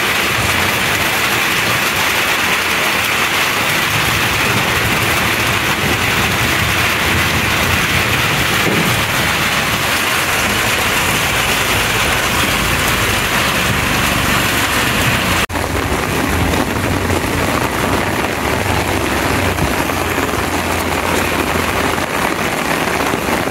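Heavy rain pouring down, a steady dense hiss, with a brief dropout about fifteen seconds in before it carries on.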